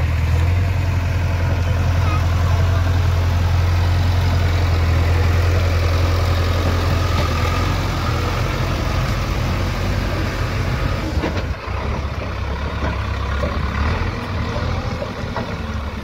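JCB backhoe loader's diesel engine idling steadily with a constant low hum. The sound shifts slightly about two-thirds of the way in.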